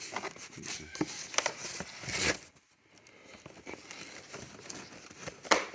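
Cardboard rustling and scraping as an inner carton is worked out of a tight outer shipping box, with a louder scrape about two seconds in and a sharp knock near the end.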